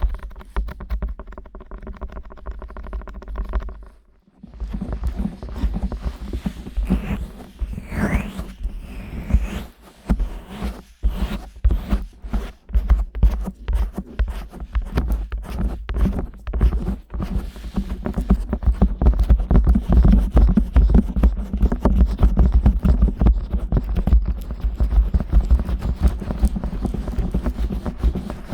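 Fingers rubbing, kneading and tapping the silicone ears of a 3Dio binaural microphone: close, muffled rustling with rapid soft taps and heavy low thumps. It grows denser and louder about two-thirds of the way through.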